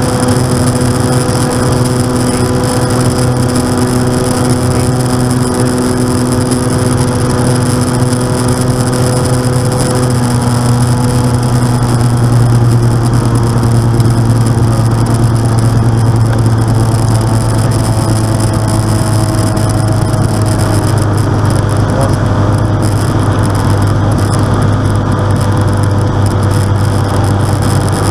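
Steady drone of a light aircraft's piston engine and propeller heard inside the cockpit in flight, with its tone shifting slightly about ten seconds in.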